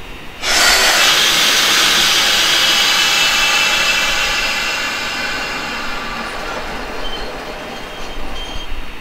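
Compressed air venting from a stationary, just-coupled Shinano Railway 115-series electric train: a loud hiss starts suddenly about half a second in and slowly fades over the next several seconds.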